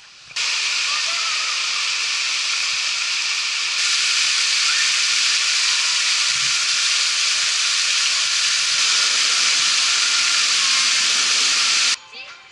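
Garden fountain water splashing steadily, with jets and a curtain of water falling into a pool. It gets louder about four seconds in and cuts off suddenly near the end.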